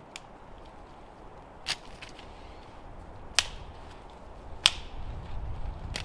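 Three sharp snaps of dry sticks being broken, about a second and a half apart, with a few fainter cracks between them. Wind starts rumbling on the microphone near the end.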